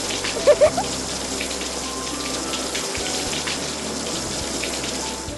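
Steady rush of splashing water during bath-time water play, with a young child giggling briefly about half a second in. The water sound cuts off suddenly at the end.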